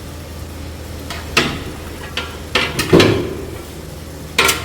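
A metal ladle clanking and scraping against a large cooking pot while tomato curry is stirred: a few separate clanks, the loudest about three seconds in, over a steady low hum.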